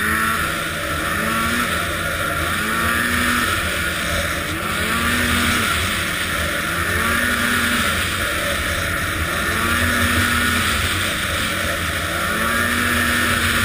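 Arctic Cat ZR 800 snowmobile's two-stroke engine running, its pitch rising, holding and dropping back in a repeating cycle every second and a half or so. This is the unresolved running fault that the owner suspects is bad fuel injectors.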